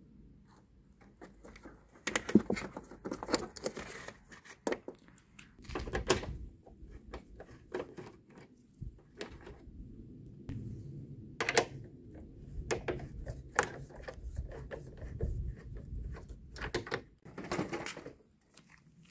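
Irregular plastic clicks, knocks and rattles of a car headlight unit being worked loose by hand: its wiring connector unplugged and the housing pulled free of the front of the car.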